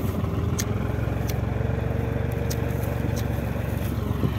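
Small tractor engine running steadily, with light scrapes and a few sharp clicks from straw bales being handled on the trailer.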